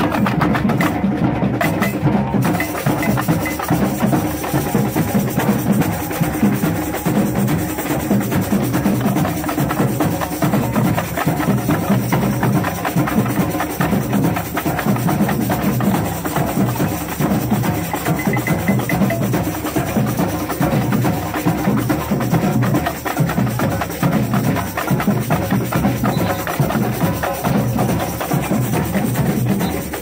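A street band's percussion section playing a steady, driving groove: massed drums with quick, sharp clicking strokes over them.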